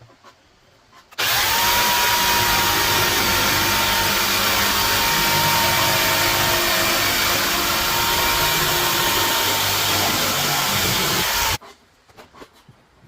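An electric power tool running steadily at full speed for about ten seconds, with a steady high whine over a loud rushing noise; it starts about a second in and cuts off suddenly near the end.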